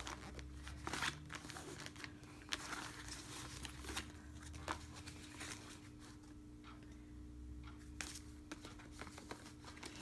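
Paper cards and booklets being handled and shuffled: faint rustling with scattered small taps and clicks, over a low steady hum.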